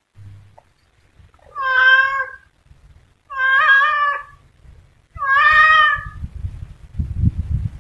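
Tabby cat meowing three times, each call about a second long, followed by a low rumbling noise near the end.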